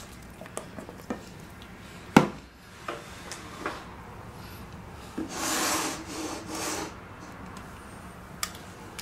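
A spatula stirring thick cheesecake batter and scraping against the side of a stainless steel stand-mixer bowl, with a few knocks of the bowl, the sharpest about two seconds in. A longer scrape around the bowl, with a faint ring from the metal, runs from about five to seven seconds in.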